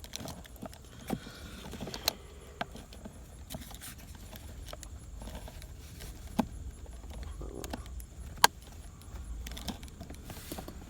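Centre-console trim pieces being handled and fitted back into place, with scattered light clicks and knocks and a few sharper snaps, about 2, 6.5 and 8.5 seconds in.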